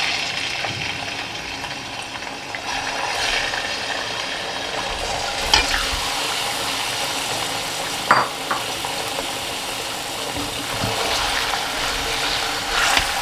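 Raw chicken pieces sizzling as they fry in hot oil in an aluminium kadhai, with a couple of sharp knocks about halfway through and a spatula stirring the pieces near the end.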